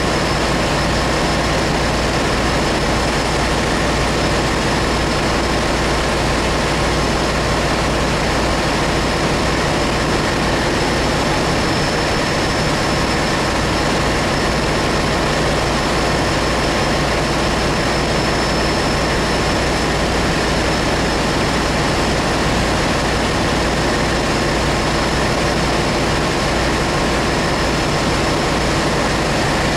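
Loud, steady engine-room machinery noise aboard a ship: a constant low drone with a few steady whining tones above it, unchanging.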